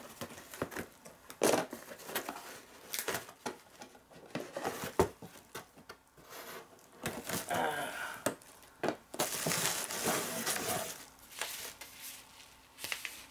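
Packaging being unwrapped by hand: crinkling and rustling of bubble wrap and a padded paper mailer, with many scattered crackles and a longer, denser rustle about nine seconds in.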